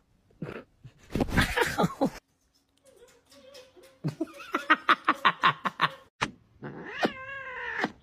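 Domestic cats yowling and growling at being kissed. A rough growling cry comes about a second in, and a long wavering yowl comes near the end.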